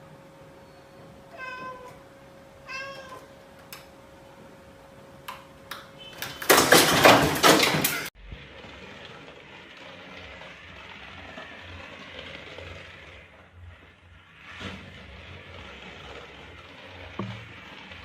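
A domestic cat meowing twice, then a loud, harsh burst of noise lasting about a second and a half. After a sudden cut there is a steady low hiss.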